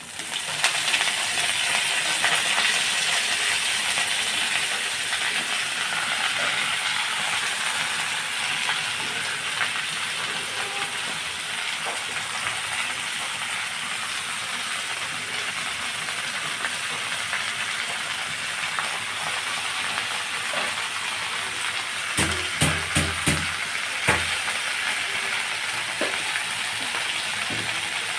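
Food frying in hot oil in a cooking pan: the sizzle starts suddenly and then hisses steadily. Near the end there is a short cluster of dull knocks.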